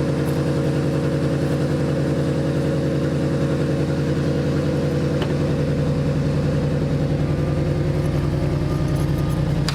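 Car engine idling steadily after a cold start.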